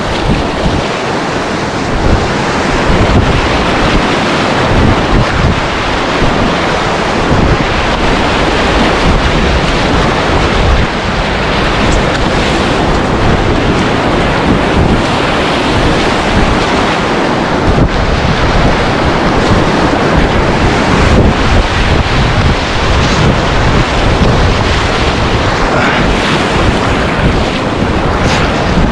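Rushing river rapids around a stand-up paddleboard, a loud steady roar of moving water, with wind buffeting the microphone in a gusty low rumble.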